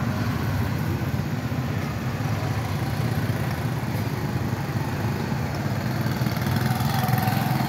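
Street traffic: motor vehicle engines running with a steady low rumble.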